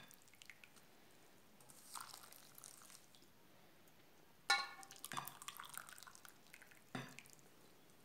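Boiled water being poured from a drinking glass onto fine bulgur in a glass bowl: faint pouring, then a few glass clinks. The sharpest clink comes about four and a half seconds in and rings briefly.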